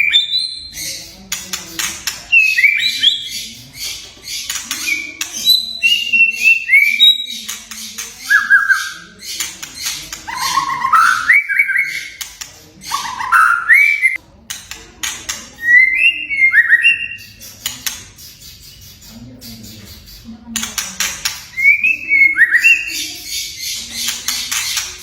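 White-rumped shama singing: loud, clear whistled notes that slide up and down, broken by runs of harsh rattling.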